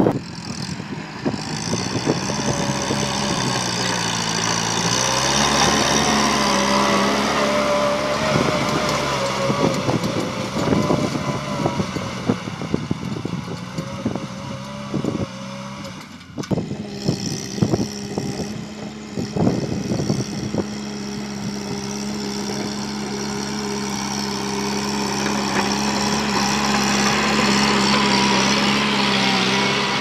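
Kubota farm tractor's diesel engine running steadily under load as it pulls a disc plow, its pitch shifting a little about five seconds in, with scattered knocks through the middle. The sound breaks off for a moment about sixteen seconds in and carries on.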